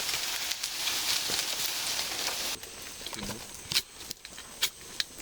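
Small fire just lit from flint-and-steel sparks: a hiss that drops off abruptly about two and a half seconds in, then a few sharp crackles.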